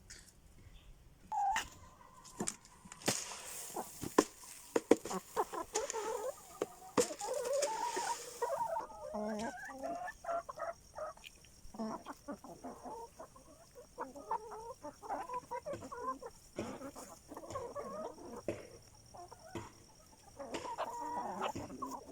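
A flock of laying hens clucking, many short calls overlapping, with scattered sharp taps. A rustling hiss runs from about three seconds in to about nine seconds in.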